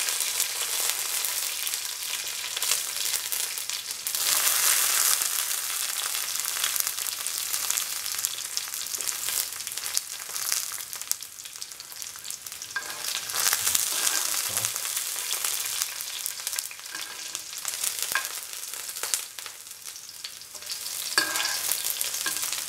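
Chopped shallots, fenugreek seeds and dried red chillies sizzling in hot oil in a pan as they are stirred. The hiss of the frying swells and fades, with the occasional knock or scrape of the spoon against the pan.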